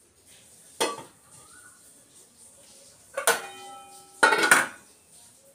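Stainless-steel pot and lid being set into an electric rice cooker. The pot goes down with a sharp clank about a second in. A little after three seconds the steel lid goes on with a ringing metal clang, followed by a quick clatter of knocks as it settles.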